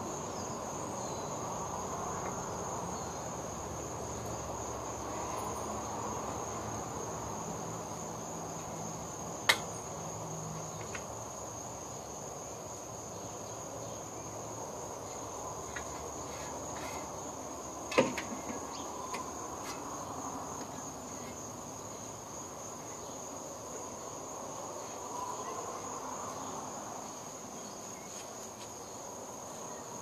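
Crickets chirring in a steady high trill. Two sharp clicks cut through it, about nine seconds in and again about eighteen seconds in.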